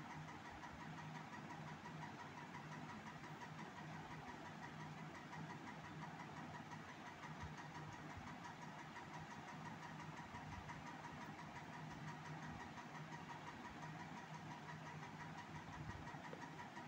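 Steady low hum with a constant pitched whine, and a few faint soft knocks as the cardboard box is handled.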